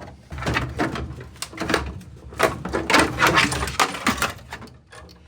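Hard objects being handled: a rapid run of clicks, clanks and rattles, densest around the middle, like metal parts and tools knocking together.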